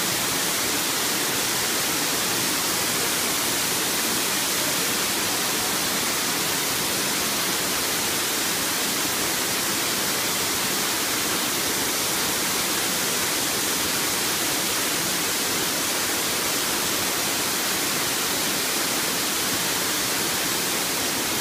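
Water raining steadily from the pipes of a pipe liquid distributor onto a steel grating during a water flow test: a constant rushing hiss of many falling streams.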